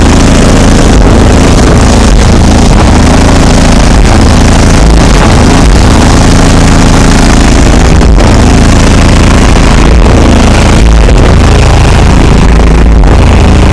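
A 5,500-watt car stereo subwoofer system playing bass-heavy music at extreme volume, heard from outside the car. Deep bass notes change every second or two, and the sound is so loud that the recording distorts throughout.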